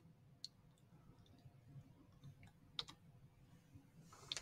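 Near silence: faint room tone with a few small clicks. The clearest click comes about three seconds in.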